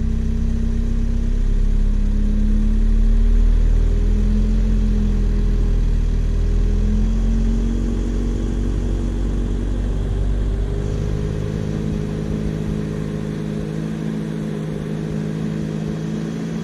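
A ute's engine running as it moves slowly across a paddock, a steady low rumble whose pitch rises and falls a little with the engine's speed.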